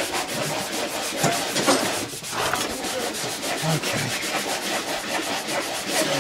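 Sandpaper rubbing on wood: steady hand-sanding rasp on green-wood stool parts, with a short lull about two seconds in.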